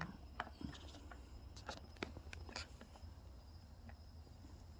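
Faint, scattered small clicks and taps, irregularly spaced, over a low steady hum.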